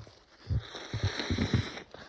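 A person with a cold and a congested nose making several short, wet nasal sounds in quick succession over a steady airy hiss, clearing the nose.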